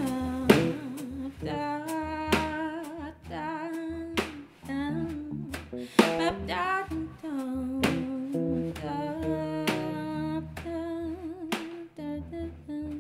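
Live band music: electric bass and drum kit, with a wavering melodic line over a low bass part and sharp drum accents every second or two.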